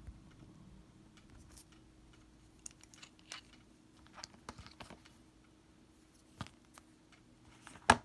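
Scattered light clicks and taps of a plastic snap and latex sheet being handled on a cutting mat, with one sharp, louder click near the end.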